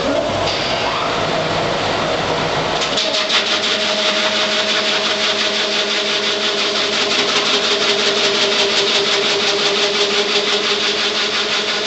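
Large wood lathe running, a steady machine hum with a high hiss and a fast, even rhythmic ticking. The sound shifts about three seconds in, as the low rumble drops away and the hum and ticking come to the fore.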